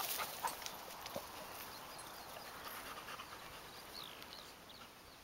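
Faint sounds of a black Labrador out on a walk: panting and light footsteps, with a few soft clicks early on. A couple of short, high, falling chirps come about four seconds in.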